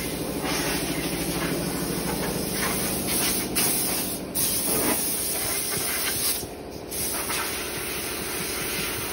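Steady machinery hum with a constant hiss, its tone shifting slightly about five seconds in.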